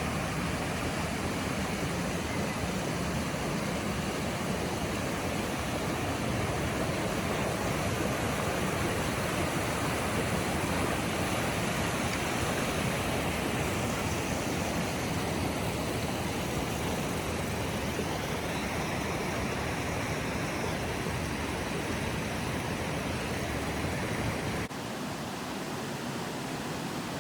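Waterfall rushing with a steady, even roar of falling water. About 25 seconds in it cuts abruptly to a quieter, thinner rush.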